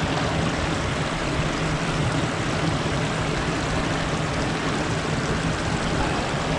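Steady rush of flowing river water, an even hiss with a low hum underneath.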